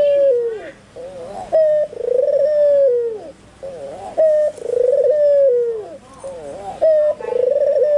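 White albino puter dove (Barbary dove) calling vigorously: a short note and then a long rolling coo that falls at the end, repeated about every two and a half seconds, three times.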